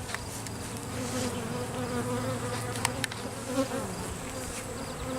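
Honey bees buzzing around an opened hive: a steady, slightly wavering hum, with a couple of light clicks.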